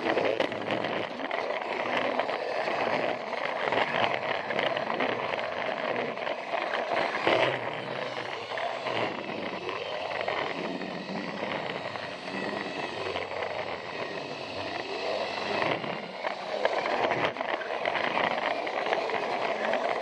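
Plarail toy train running along plastic track: a steady motor whir with the wheels rattling and clicking over the track, a little quieter for several seconds in the middle.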